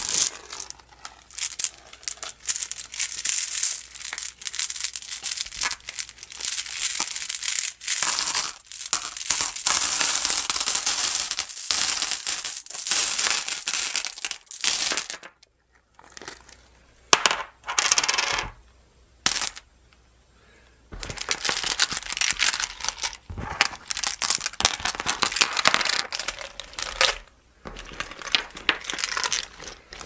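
Flat glass pebbles clinking and clattering against each other in long runs of dense, rapid clicks as they are heaped onto and worked into a slab of homemade slime, with a brief pause about halfway through.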